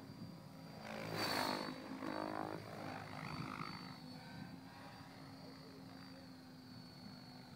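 Mikado LOGO 800 electric RC helicopter in flight: rotor blades whooshing over a steady high motor whine. It swells loudest about a second in during a close manoeuvre, then settles quieter and steadier as the helicopter hovers farther off.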